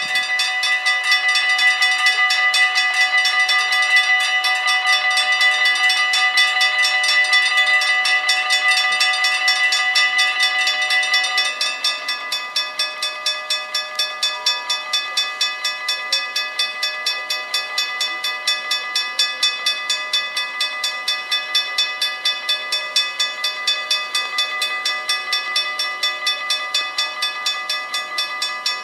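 Mechanical bells of a Dutch automatic half-barrier level crossing ringing together, several strokes a second at different pitches, warning of an approaching train. About twelve seconds in, some of the bells stop and the ringing goes on quieter.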